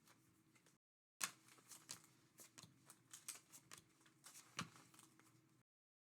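Faint clicks and slides of baseball trading cards being flipped through by hand, cutting out to dead silence twice.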